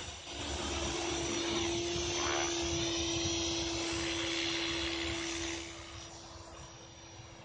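Align T-Rex 500 electric RC helicopter flying low: a steady high whine from its brushless motor and gears under the whoosh of the rotor blades. Near the end, as it settles onto the grass, the sound drops off and the whine carries on more quietly.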